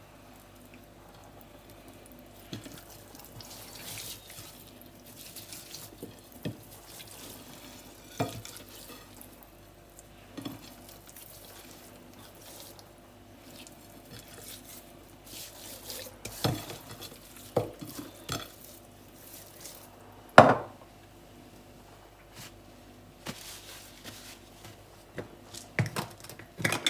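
Dried mixed herbs shaken from a small jar over a raw chicken and rubbed into the skin: faint rustling and soft handling, with scattered light knocks and clicks, the sharpest about twenty seconds in, over a faint steady hum.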